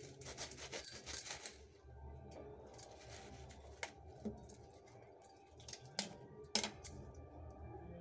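Knife cutting cauliflower into florets: a quick run of small clicks and snaps, then a few sharper single clicks.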